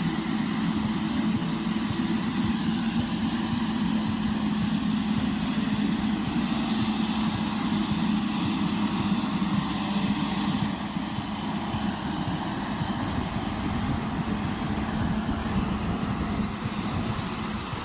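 Timberjack 450C log skidder's diesel engine running steadily while hauling logs, a steady engine hum that eases slightly about eleven seconds in.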